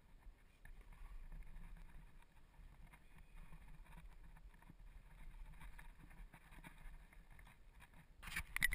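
Faint, muffled low rumble and rustling from a body shifting against rock, dulled by a camera's waterproof housing. A louder burst of sound comes in near the end.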